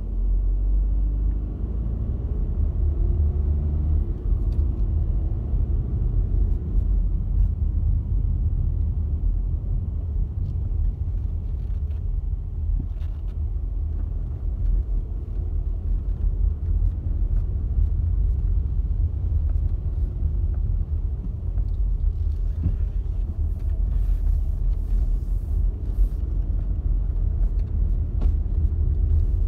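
Steady low rumble of a car's engine and tyres heard from inside the cabin while driving. Scattered knocks and rattles come in near the end as it runs over a broken, potholed concrete lane.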